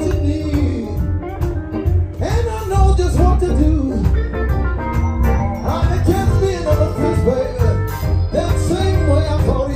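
Live blues band playing, with a male vocalist singing melismatic, gliding lines into a microphone over electric guitar and a heavy bass.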